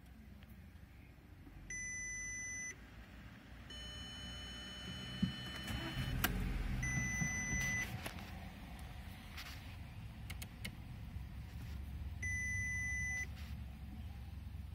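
Audi A3 8P instrument-cluster warning chime sounding three times, about five seconds apart, here signalling a bulb-failure warning for the front right fog light. Between the first and second chime the engine is cranked with a whine, catches and settles to idle.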